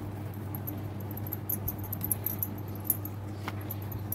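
Fingers pressing and spreading soft layered dough on a marble board, giving small scratchy ticks and a click about three and a half seconds in, over a steady low hum.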